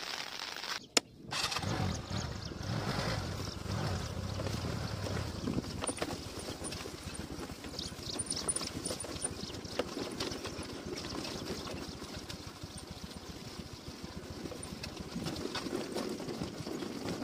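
TVS Ntorq 125 scooter's single-cylinder engine running at low speed as it rides slowly down a rough, rocky dirt track. A sharp click comes about a second in.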